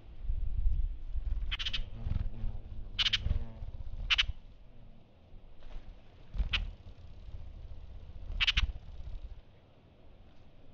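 Broad-billed hummingbird hovering close to the feeder, its wings making a low hum, with five short, sharp chip calls spaced a second or two apart. The wing hum stops about nine and a half seconds in, when the bird perches to feed.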